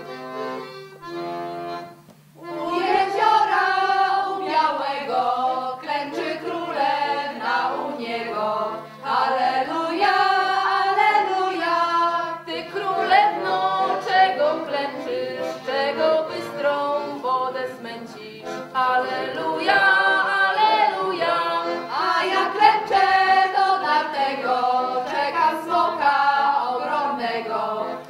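A group of voices singing a folk song together in the Easter 'Aliluja' carolling tradition, over a steady low note. A short break about two seconds in comes before the singing resumes in full.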